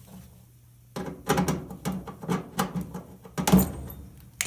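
Hands working in the dryer's blower housing to get at a sock jammed in the blower: a run of scrapes, rustles and knocks starting about a second in, loudest near three and a half seconds in, ending in a sharp click.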